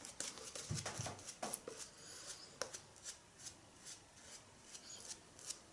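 Synthetic shaving brush working thick shaving-cream lather over two days' stubble: faint, irregular scratchy brushing strokes.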